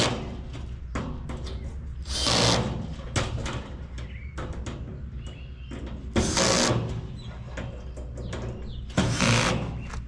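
Four short bursts from a power driver spinning bolts and nuts tight on a galvanized metal raised garden bed, with small metal clicks and knocks between them.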